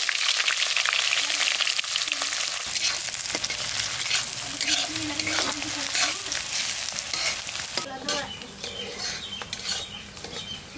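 Sliced onions sizzling in hot oil in an iron kadai, stirred and scraped with a metal spatula. The sizzle is loudest at first and slowly dies down.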